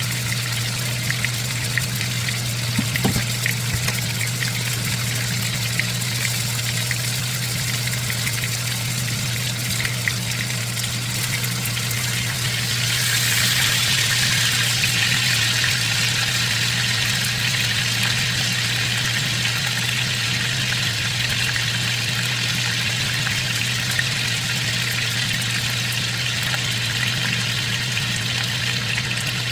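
Chicken pieces sizzling in hot oil in a frying pan as they brown, over a steady low hum; the sizzle grows louder about thirteen seconds in, with a few light clicks near the start.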